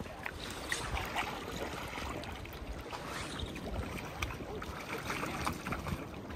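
Gusty wind buffeting the microphone over a steady wash of rain and running river water.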